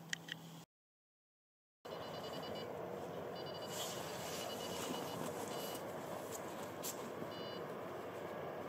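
Steady outdoor background hiss that drops out to dead silence for about a second near the start, then resumes. Over it come five short high chirping or beeping notes, each under a second long.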